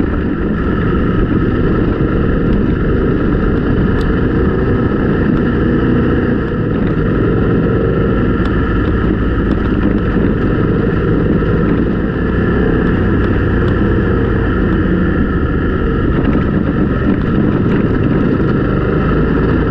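BMW GS boxer-twin adventure motorcycle running steadily at riding speed on a gravel road, with wind on the microphone.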